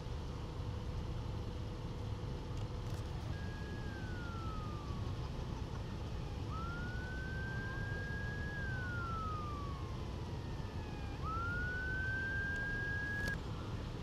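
Emergency vehicle siren in a slow wail, starting about three seconds in, falling and rising in pitch a few times and cutting off suddenly near the end, over a steady low rumble.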